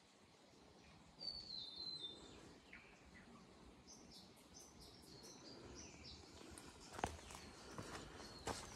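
Faint bird calls: a run of high whistled notes stepping down in pitch about a second in, then a string of short high chirps, over a low background hiss. Two short sharp clicks near the end.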